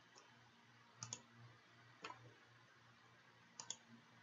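Three faint computer mouse clicks, about a second or so apart, over near silence. Each click is a short, sharp tick.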